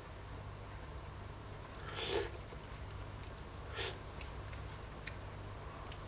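Two short slurping sips of hot fish stew taken from a spoon while tasting it, about two seconds and four seconds in, over a low steady hum.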